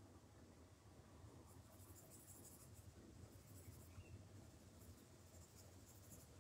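Faint, irregular scratching of a Derwent Chromaflow coloured pencil shading on paper, filling in a colour swatch.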